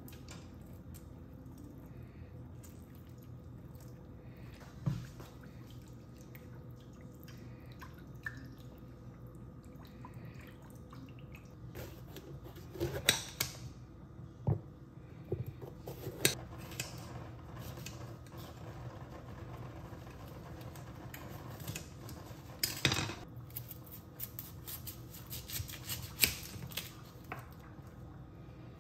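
Kitchen knife cutting a red bell pepper and an onion on a hard countertop: scattered sharp knocks and taps of the blade, coming in clusters in the second half, over a low steady hum.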